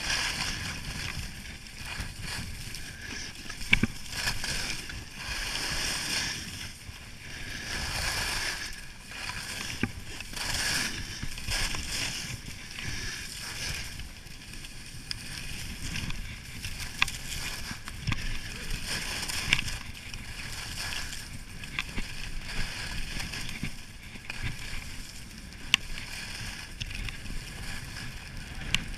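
Skis carving turns on snow-covered groomed piste: a swishing scrape that swells and fades with each turn, with a few sharp clicks.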